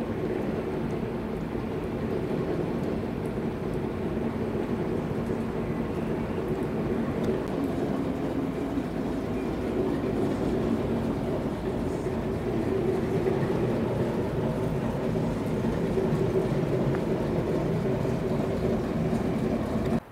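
Diesel locomotive engine running steadily with a low hum, cutting off suddenly at the end.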